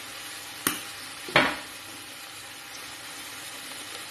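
Beef pieces sizzling in a frying pan, a steady hiss, with two sharp knocks a little under a second in and again just after, the second one louder.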